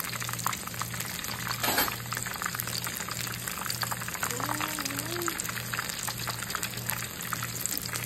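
Conch fritters deep-frying in hot oil: a steady crackling sizzle, with one louder hiss or spatter a little under two seconds in. Faint background music with an even pulse runs underneath.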